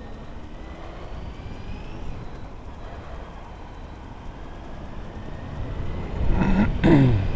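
Steady vehicle engine noise that grows louder toward the end, with a brief voice fragment near the end.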